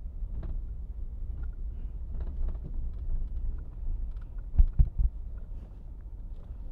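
Low rumble of a pickup truck rolling slowly, heard from inside the cab, with scattered light clicks and three quick thumps a little under five seconds in.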